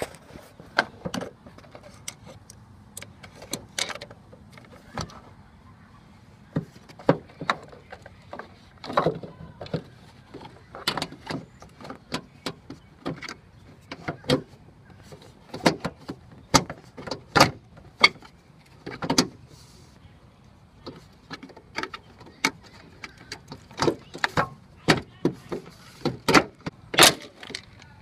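Irregular clicks, knocks and rattles of a plastic trunk-lid trim panel and the tools being handled while the trim is refitted over a newly installed trunk latch, the knocks coming in clusters with short pauses between them.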